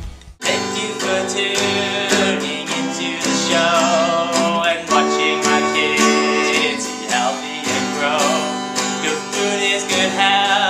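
Acoustic guitar strummed in chords with a man singing along, starting suddenly about half a second in.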